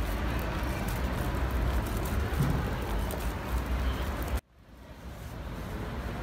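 City street ambience: a steady low rumble of traffic and general urban noise. About four and a half seconds in it cuts out abruptly, then fades back in.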